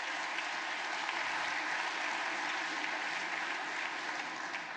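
Audience applauding steadily, the clapping dying away near the end.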